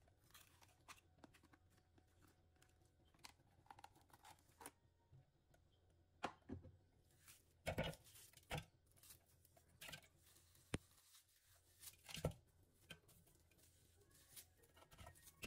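Faint, wet handling noises as soft pieces of fruit pulp are pulled apart and dropped into a clear plastic food-chopper bowl, with scattered light taps and clicks on the plastic, the sharpest about eight and twelve seconds in.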